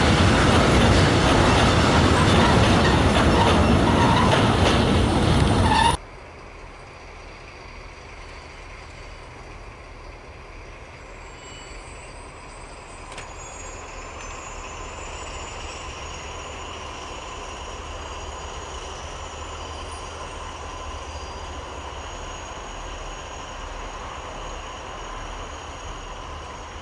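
Loaded steel-coil flat wagons of a freight train rolling past at speed, a loud rush of wheels on rail that cuts off abruptly about six seconds in. After that, much quieter: a pair of BB 67400 diesel locomotives running slowly at the head of the train, with a faint thin wheel squeal.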